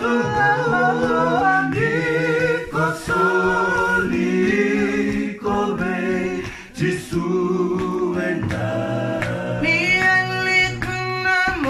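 Unaccompanied voices singing together in harmony, a cappella, with a brief break about two-thirds of the way through.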